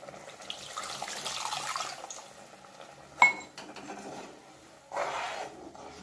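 Water poured into a simmering tamarind curry in a nonstick kadai, then a perforated steel ladle clinks once sharply against the pan and scrapes as the curry is stirred.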